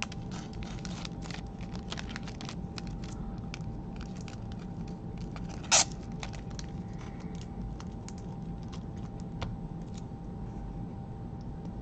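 Scattered light clicks and rustles of small things being handled at a desk, with one sharper, louder click about six seconds in, over a steady faint hum.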